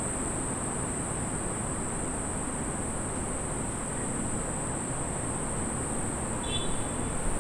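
Steady high-pitched insect drone over a constant low rumble of outdoor ambience, with one brief high chirp near the end.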